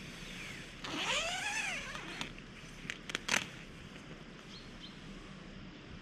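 A tent door zipper being unzipped in one pull, a buzz about a second long that rises and then falls in pitch, followed by a few sharp clicks.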